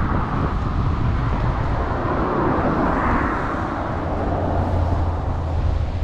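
Wind rumbling on the microphone over a steady wash of road traffic and ocean surf, swelling briefly about three seconds in.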